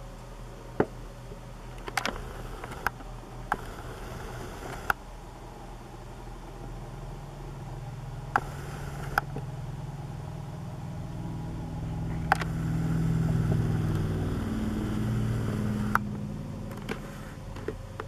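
Scattered sharp clicks and taps from an unpowered ceiling fan being pushed round by hand, with conures perched on its blades. A low rumble swells about halfway through and fades near the end.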